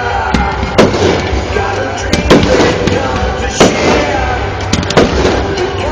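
Aerial fireworks bursting: about five sharp bangs, with crackling between them, over music playing underneath.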